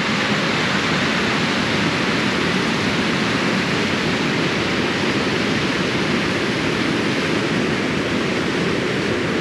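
Snowmelt overflow water rushing hard down a rocky spillway channel: a steady, even rush of water.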